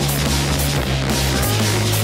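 Loud, heavy music soundtrack with a deep, sustained bass line.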